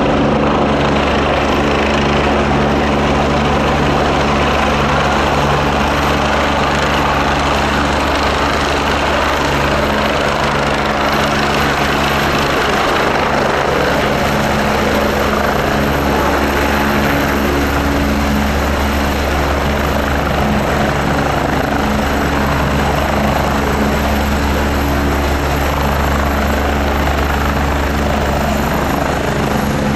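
AgustaWestland AW109 twin-engine helicopter hovering low and settling onto the pad: a loud, steady rotor beat over turbine noise, with a thin high whine that drops slightly near the end.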